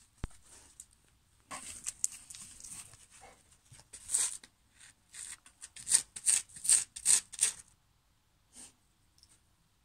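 Labrador retriever sniffing hard at a rolled-up hedgehog: short breathy snuffs, coming quickest and loudest in a run of about three a second between six and seven and a half seconds in.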